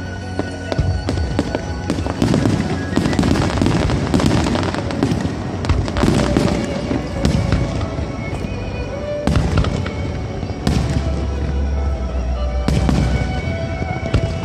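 Aerial fireworks bursting in a rapid barrage, dense crackling and popping with several sharp bangs in the second half, over music played with the show.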